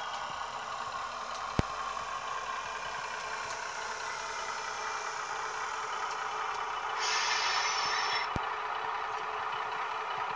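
Sound decoder in an N gauge Dapol Class 156 Sprinter model playing its Howes sound file: the diesel engine running steadily through the model's small speaker while the unit moves along the track. A sharp click comes about a second and a half in, and a brief hiss lasting about a second comes near the end.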